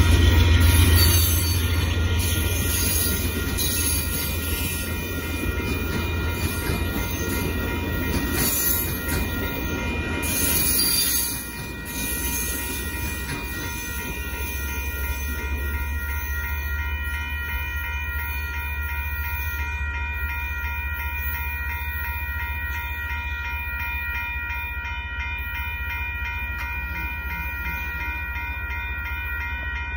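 Amtrak Texas Eagle passenger cars rolling through a grade crossing, a heavy rumble with rail and wheel noise that drops away about 12 seconds in as the last car clears. A railroad crossing bell rings steadily and evenly throughout.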